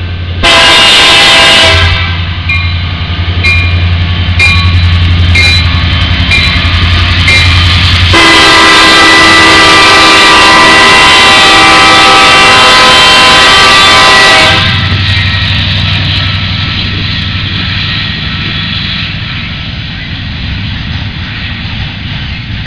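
Union Pacific diesel locomotive's air horn sounding, really loud, in a series of blasts that ends in one long blast, over the low rumble of the locomotive engine. After the horn stops, about two-thirds of the way in, the train's rumble continues and slowly fades.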